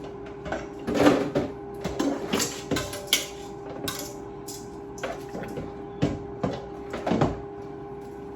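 Kitchen handling sounds: utensils and dishes clinking and knocking at irregular moments over a steady hum.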